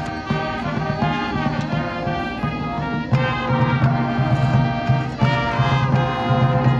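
Marching band brass playing a sustained passage, trumpets over trombones and low brass, swelling louder and fuller about three seconds in.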